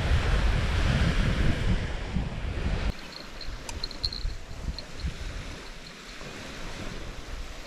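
Wind buffeting the microphone over small waves washing onto a sandy beach; the wind drops off suddenly about three seconds in, leaving a softer surf hiss and a few faint, short high ticks.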